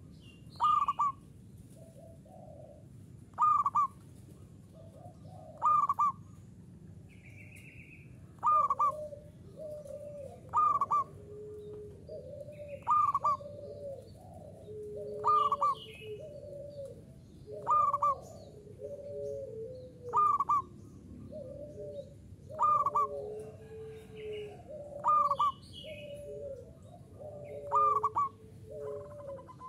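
Zebra dove (perkutut) cooing, a loud phrase repeated about every two and a half seconds. From about a quarter of the way in, softer, lower cooing notes fill the gaps between phrases.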